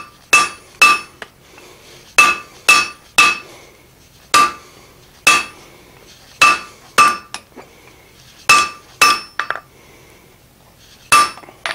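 Hand hammer striking a glowing-hot piece of steel sucker rod on the anvil, forging the shank of a hardy. About a dozen blows come in irregular groups of two or three, each with a short bright ring from the anvil.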